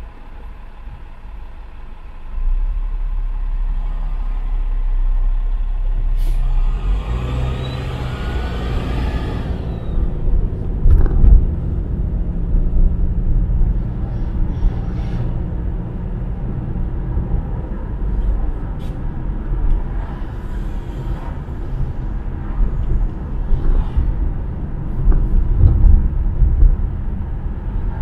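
Car driving in city traffic: steady low engine and road rumble that grows louder about two seconds in as the car moves off. A few seconds later comes a loud hiss lasting about three seconds, with a faint rising whistle in it, and a few light knocks follow.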